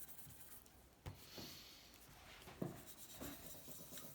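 Faint handling sounds at a workbench: light rubbing with a few small clicks and knocks, one sharp click about a second in and another near the middle.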